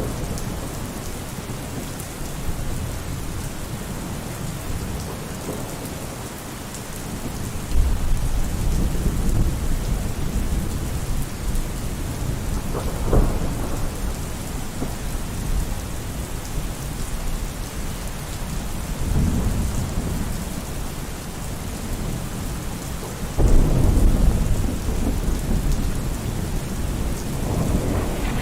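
Steady heavy rain through a thunderstorm, with rolls of thunder rumbling in suddenly about a third of the way in and again near the end, and a sharp crack of thunder in between.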